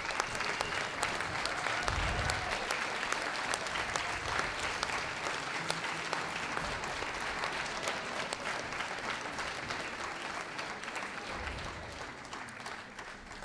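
Audience applauding steadily, a dense patter of many hands clapping that dies away near the end.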